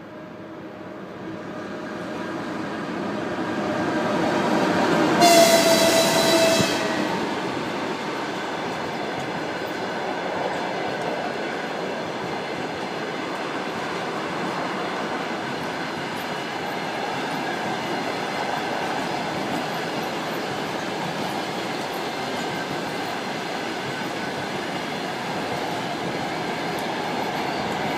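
EP1 electric locomotive hauling a passenger train: a rumble that grows as it approaches, a single horn blast about five seconds in lasting a second and a half, then a steady rumble of the coaches' wheels on the rails as the train passes.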